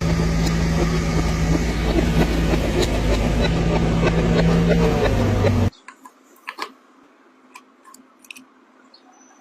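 Caterpillar 320GC excavator's diesel engine running steadily, with a low drone and a slight wavering whine over it. It cuts off abruptly about six seconds in, leaving a quiet background with a few light clicks.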